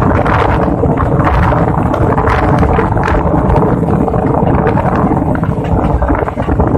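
Passenger train coach running at speed: a loud, steady rumble with quick rattles and knocks from the running gear, mixed with wind rushing over the microphone.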